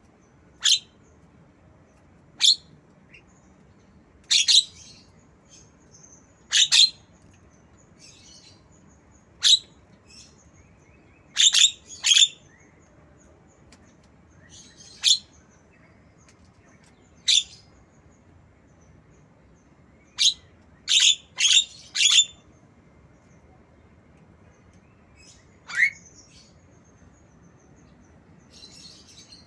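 Javan myna giving short, sharp, high chirps that imitate a lovebird's calls, one every second or two, some in quick runs of two or three.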